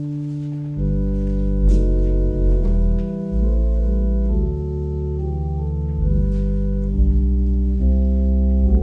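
Organ playing slow, sustained chords, with deep bass notes coming in about a second in.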